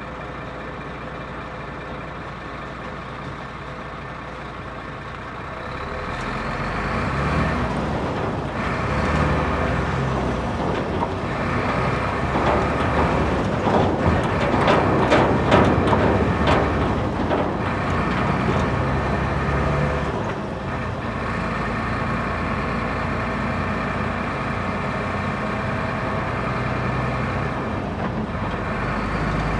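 Truck driving, its engine running under steady road noise, with loose chains banging and rattling. It grows louder about six seconds in, and the chains clank most densely in the middle.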